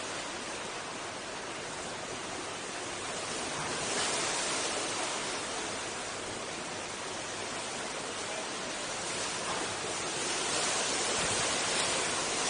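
Steady rushing of strong wind, swelling a little in gusts about four seconds in and again near the end.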